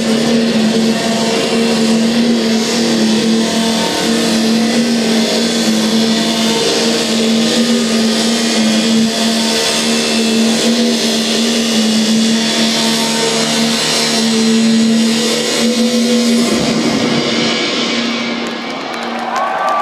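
Live electronic dance music played loud over a concert sound system: a sustained synth drone held on one steady pitch over a dense wash of sound. The drone shifts about three-quarters of the way through, and the sound dips briefly near the end.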